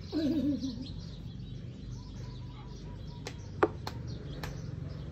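Birds chirping in the background over a steady low hum. A brief wavering vocal sound comes in the first second, and a few sharp clicks fall about three and a half seconds in.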